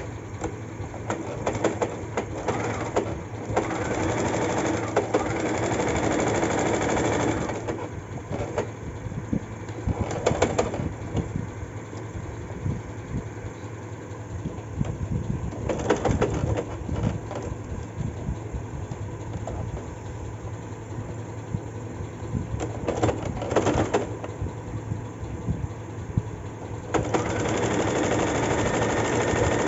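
Domestic electric sewing machine stitching in stop-start runs, with its rapid needle ticking. It runs longest about four seconds in and again near the end, with shorter bursts between.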